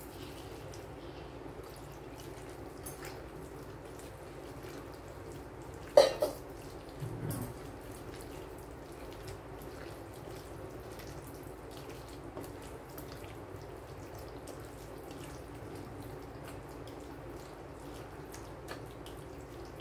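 A hand squeezing and stirring a wet flour-and-onion batter in a bowl: soft, wet squelching with small ticks. One sharp knock about six seconds in.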